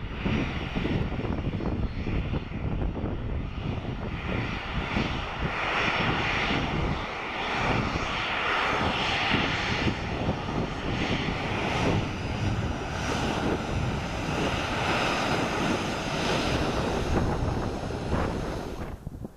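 Airliner engines running loud and steady: a deep rumble and rush with faint high steady tones above.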